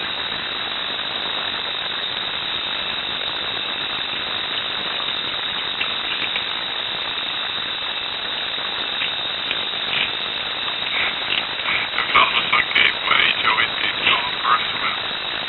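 Steady hiss, then from about ten seconds in a run of sharp, irregular cracks and snaps as sticks are pulled and broken out of a beaver dam.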